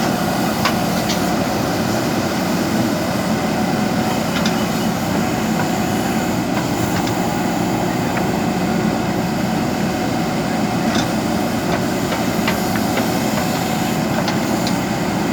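Backhoe loader's diesel engine running steadily under work, with a few sharp metallic clicks now and then.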